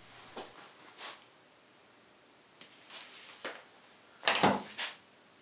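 A few soft knocks and handling clatters over quiet room tone. The loudest comes a little after four seconds in, as a pair of over-ear hearing-protection muffs is set down on the wooden workpieces.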